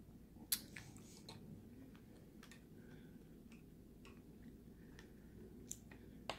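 Faint mouth clicks and smacks of chewing sugared strawberries with the mouth closed: scattered single sharp ticks at irregular times, the loudest about half a second in, over a low steady background hum.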